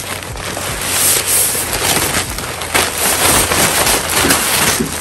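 Loud crinkling and rustling of a plastic poly mailer bag being pulled open by hand and shaken out.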